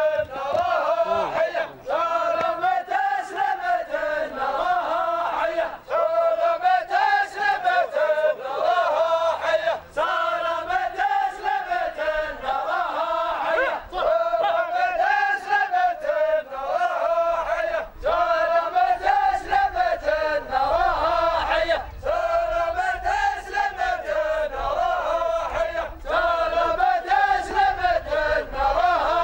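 A line of men chanting together in unison, repeating a phrase with a brief break about every four seconds.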